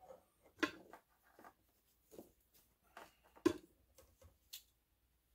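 Scattered soft clicks and rustles as an Apple II floppy drive controller card and its ribbon cable are handled and fitted into the open computer's slots, with one sharper click about three and a half seconds in.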